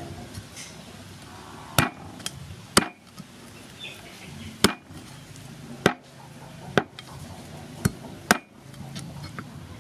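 Meat cleaver chopping raw chicken pieces through the bone on a wooden chopping block: about seven sharp chops, irregularly spaced a second or so apart.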